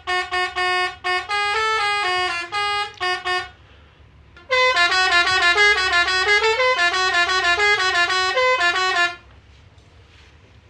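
A Road Master RM-615 multi-tone musical air horn, the Indonesian "telolet" type, plays a tune of short blasted notes. It stops about three and a half seconds in. About a second later it starts a second, quicker tune, which runs until about nine seconds in.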